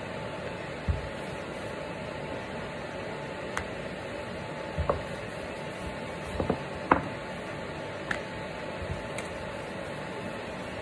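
Wooden rolling pin rolling out chapati dough on a counter, knocking against the countertop several times at irregular intervals over a steady background hiss.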